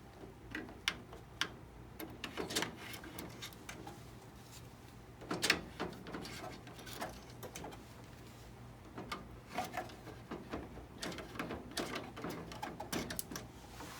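Ink cartridges being pushed one by one into the cartridge slots of a VariQuest Perfecta 2400 poster printer: scattered plastic clicks and knocks, the loudest about five seconds in, over a low steady hum.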